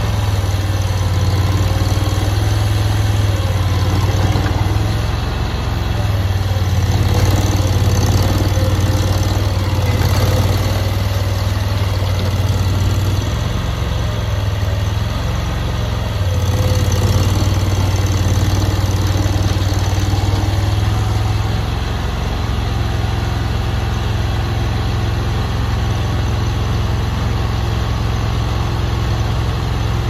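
Engine of a stand-on mini compact track loader running steadily, its level swelling and easing a few times as the machine is worked.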